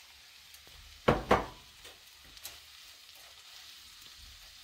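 Vegetables sizzling faintly in melted butter in a frying pan, with two loud knocks about a second in.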